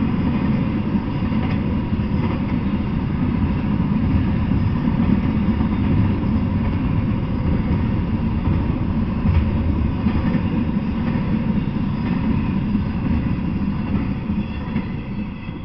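Double-stack intermodal container train rolling past on steel rails: a steady low rumble of its wheels and well cars that fades away near the end as the last car clears.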